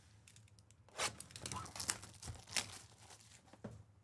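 Plastic shrink wrap being torn and crinkled off a sealed trading-card hobby box, in several short sharp rips.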